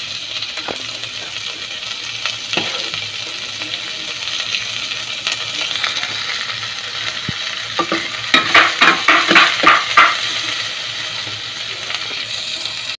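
Pork, garlic, onion, ginger and tomato sizzling as they sauté in oil in a stainless steel pot, with a utensil stirring through them. About eight seconds in comes a quick run of stirring strokes against the pot, about five a second, the loudest part.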